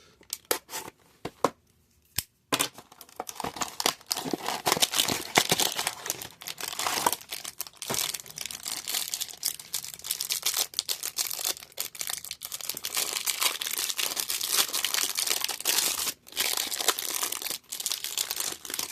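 Plastic wrapper of a trading-card hanger pack being torn open and crinkled. It starts about two and a half seconds in and goes on as dense crackling, with a brief pause near the end.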